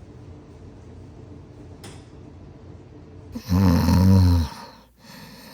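A loud snore lasting about a second, about three and a half seconds in, over a faint low hum.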